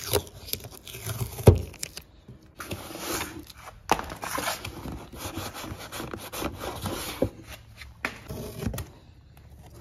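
Cardboard template and masking tape being handled against the vehicle body: irregular scraping and rubbing, a heavy thump about a second and a half in, and a few sharp knocks.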